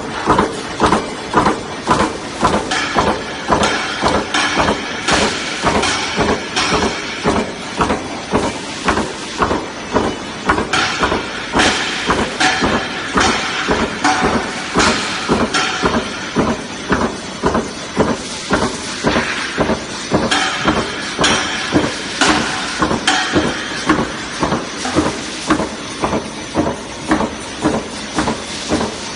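High-speed 40-ton punching press stamping razor-wire blades from steel strip, striking in an even rhythm of about two strokes a second over steady machine noise.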